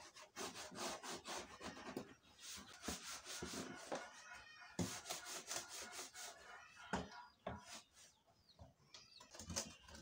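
Hand scrubbing of wet plastic feeder trays, a run of quick rubbing strokes, with chickens clucking in the background.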